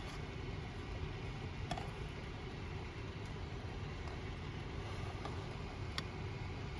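Steady low rumbling hum with a few faint, light clicks about two seconds and six seconds in.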